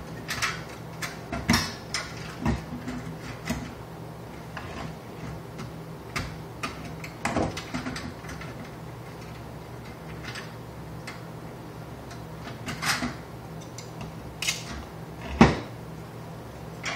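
Hands working a sheet-metal fluorescent light fixture and its ballast: scattered clicks, knocks and light metal clatter as parts are pulled apart and handled, with one sharp knock about fifteen seconds in the loudest. A steady low hum runs underneath.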